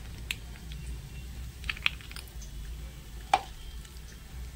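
A spoon clicking a few times against the curd bowl and mixer jar as curd is spooned into the jar for green chutney. The clicks come about a third of a second in, twice just before two seconds, and loudest near three and a half seconds, over a low steady hum.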